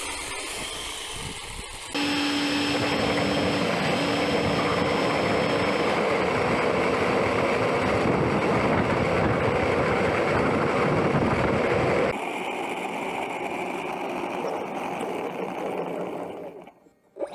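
E-flite F-15's 64 mm electric ducted fan running at high power on the takeoff roll: a steady rush of air with a thin whine over it. It jumps louder and closer about two seconds in and drops back to a quieter level about twelve seconds in.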